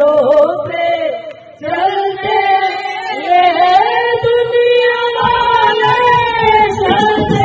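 Women singing a devotional kirtan bhajan through microphones and a PA, one voice leading with others joining. The singing breaks off briefly a little over a second in, and a low beat comes in about five seconds in.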